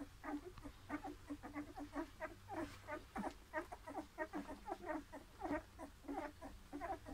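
Newborn Bernese mountain dog puppies squeaking and whimpering while they nurse, in short, quick cries, several a second, some overlapping.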